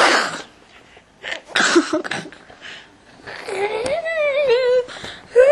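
A person's non-speech vocal noises close to the microphone: a few short, hissy puffs of breath, then a drawn-out, wavering voiced sound starting about three and a half seconds in.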